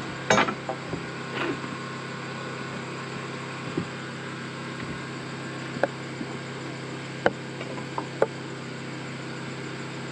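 Scattered sharp knocks and taps from timber framing work, about seven irregular strikes, over a steady low hum.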